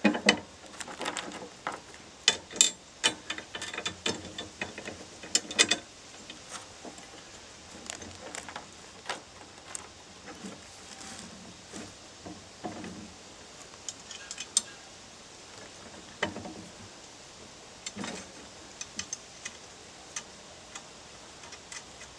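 Steel brackets, bolts and washers of a rake attachment clinking and knocking as they are handled and fitted together. The clicks come thick and fast for about the first six seconds, then only now and then.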